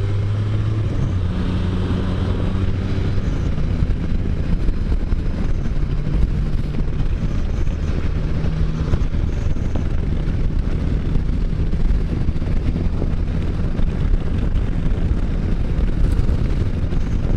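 Can-Am Spyder three-wheeled motorcycle engine running steadily while riding on the road, with a low engine note whose pitch shifts a little now and then.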